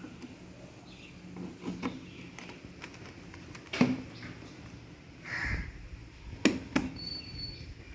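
Scattered sharp clicks and knocks of hard objects being handled, with a short rustle about five and a half seconds in.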